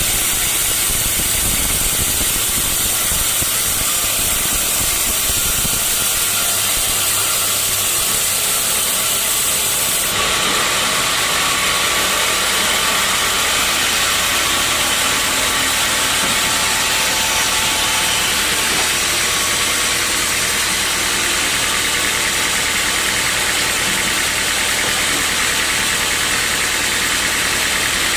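Sawmill machinery running steadily, a loud even mechanical noise whose tone changes abruptly about ten seconds in.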